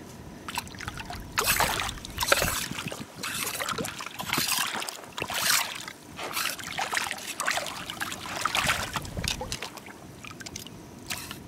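Rubber boots wading through shallow seawater: irregular sloshing splashes, one every second or so.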